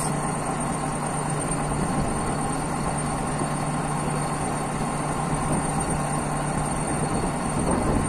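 ChTZ crawler bulldozer's diesel engine idling steadily with a constant low drone; the operator says this engine keeps stalling.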